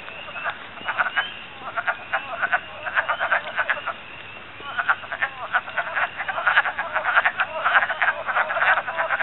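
Breeding chorus of many wood frogs at a vernal pool: a dense, overlapping stream of short croaking calls that thins briefly about four seconds in, then builds again.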